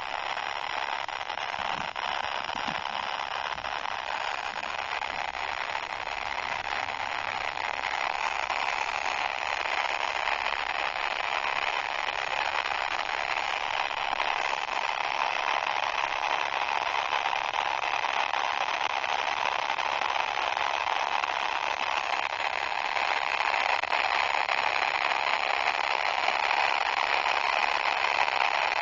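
Heavily distorted fart sound effect: a continuous harsh, crackling noise that grows gradually louder.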